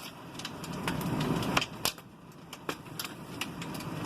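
Heavy rain pounding a window covered with cardboard and a wooden board: a steady hiss with many irregular sharp taps of drops striking, swelling about a second in.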